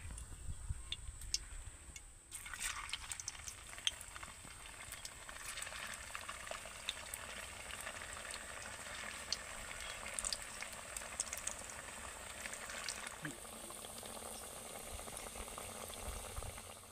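Potato-and-wheat-flour snacks deep-frying in a kadai of hot oil, sizzling with steady crackling. The sizzling starts about two seconds in.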